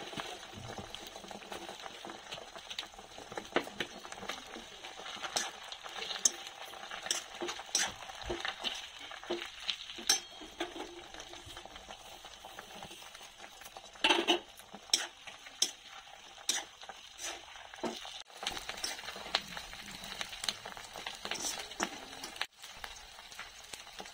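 Hibiscus flowers and leaves frying in foaming oil in a black iron wok: a steady sizzle with scattered clinks and scrapes of a steel slotted spoon stirring against the pan, and a louder clatter a little past halfway.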